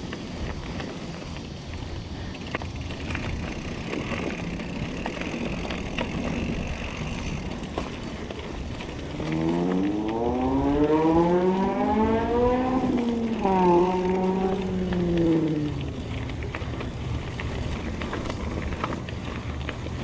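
Diamondback Atroz 3 mountain bike rolling down a dirt forest singletrack: steady tyre rumble, wind on the microphone and small rattles from the bike. About halfway through, a droning tone rises in pitch, levels off and dies away over about six seconds, louder than the riding noise.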